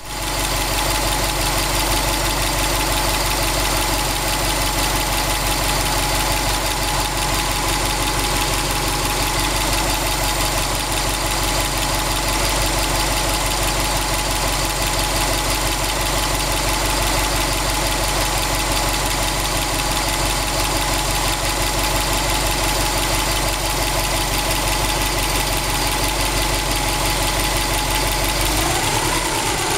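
2002 Subaru Impreza WRX STi's turbocharged flat-four engine idling warm, with a knocking noise in its running 800 km after a short-block replacement. Near the end the pitch shifts briefly.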